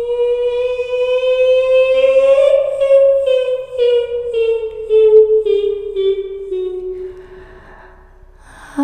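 Eerie high female voice humming one long note that rises slightly, then falls in a series of short, pulsing steps and fades out near the end.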